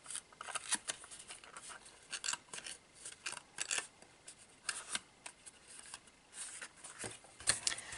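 Handling of cardstock: scattered light taps, rubs and rustles as glued sides of a paper box lid are pressed together.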